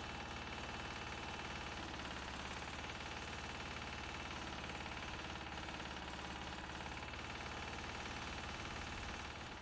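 Engine of a rail maintenance machine running steadily at an even speed, with a rapid, regular pulse.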